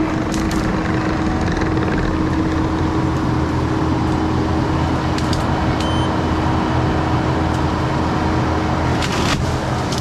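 Kubota SVL95-2s compact track loader's diesel engine running steadily under load, with a steady tone held in its note, as its tree shear pushes into brush. Branches crack and snap briefly, once near the start and again near the end.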